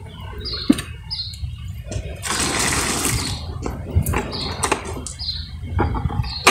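A rush of splashing liquid lasting about a second, from hot dye water being poured or scooped into a bucket, over a steady low rumble of wind on the microphone. A small bird chirps a short note about once a second, and pots and utensils knock a few times.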